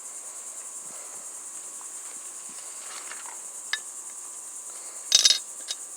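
Crickets chirping steadily. There is a light click partway through and a short, sharp clatter about five seconds in.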